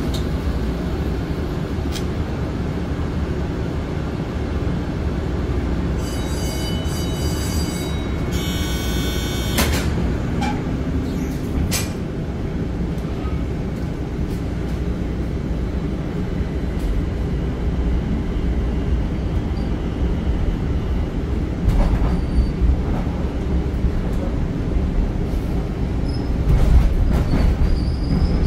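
Low rumble of a light-rail car heard from inside. About six seconds in there is a two-part electronic tone and then a few sharp clicks. Near the end the running gets louder and rougher as the car gets under way.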